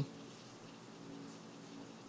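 Faint room tone: a steady low hiss with a faint even hum and no distinct events.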